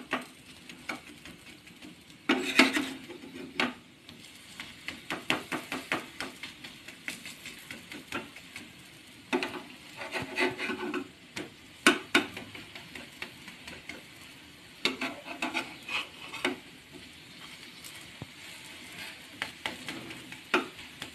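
Metal spatula scraping and tapping on a flat tawa as frying cashew patties are turned over, in several short bursts, over a faint sizzle of the patties cooking in a little oil.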